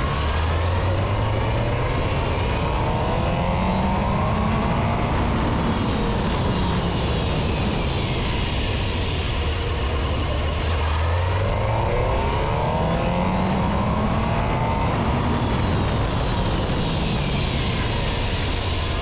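Suzuki GSX-R750 inline-four engine on the road, its note rising and falling twice as the bike speeds up and slows, over steady wind rush. These are repeated light stops from about 40 mph to bed in new brake pads on freshly honed rotors.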